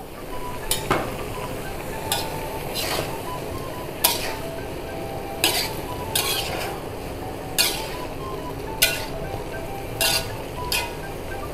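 Spatula stirring vegetables frying in oil in a wok, over a steady sizzle, with sharp clinks of the spatula against the pan about once a second.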